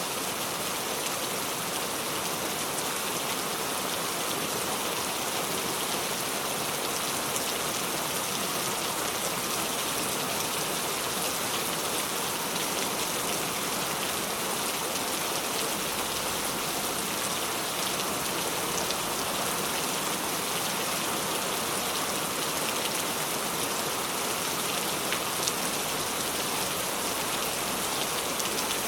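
Steady falling rain, a dense even hiss of drops pattering on a surface with occasional sharper individual drop ticks.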